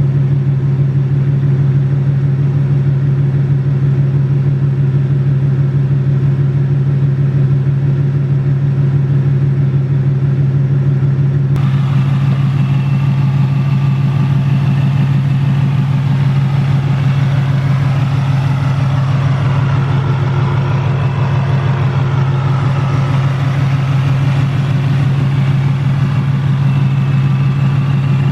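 2018 Ford Mustang GT's 5.0 Coyote V8 idling steadily at an even pitch, running on fresh Rotella T6 5W-40 oil that the owner credits with getting rid of its tick. The sound turns brighter, with more hiss, about twelve seconds in.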